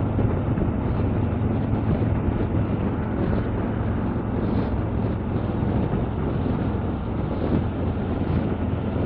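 Harley-Davidson touring motorcycle's V-twin engine running steadily at road speed, mixed with wind rushing over the microphone.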